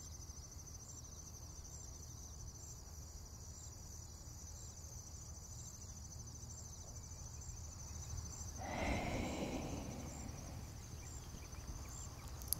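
Steady high-pitched trill over a low hum, with a brief soft rustle about nine seconds in.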